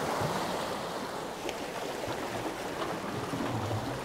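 Small sea waves washing and splashing against the boulders of a rock jetty, a steady rush of surf.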